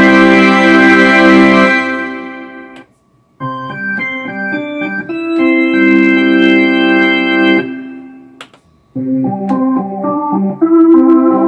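Roland D-50 synthesizer playing organ patches in turn: a held chord on a violin-and-organ layered sound dies away about three seconds in, then after a brief silence a drawbar organ patch plays short chords and a long held chord. Near the end, after another short gap, a rotary-speaker (Leslie-style) organ patch starts with new chords.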